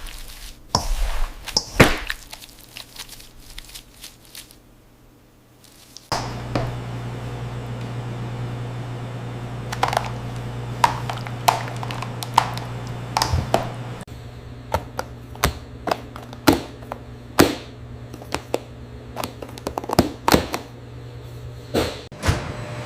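Factory machinery: irregular knocks and clacks over a steady low hum that starts about six seconds in.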